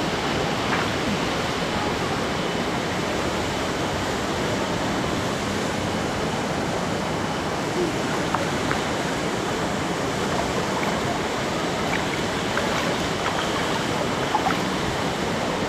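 Waterfall and stream water rushing in a steady, even roar.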